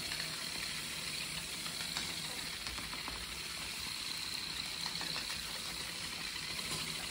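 Steady low hum and hiss with a faint high whine, unchanging throughout, and a few faint soft taps.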